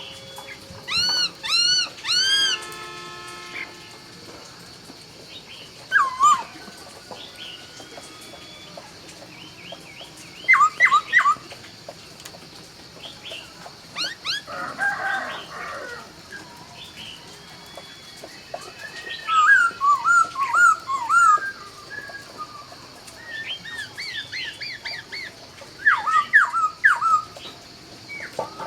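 Khướu laughingthrush singing in separate phrases with pauses: loud, rich whistles rising and falling, a falling run of steady notes, quick downward swoops and rapid jumbled twitters. A harsher, noisier call comes about halfway through, over a faint steady high tone.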